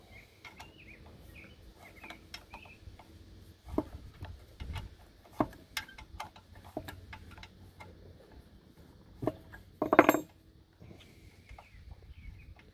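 Light metal clicks and clinks of a steel hex key working a socket-head bolt loose on an engine's pump mount, with a louder metal clatter about ten seconds in.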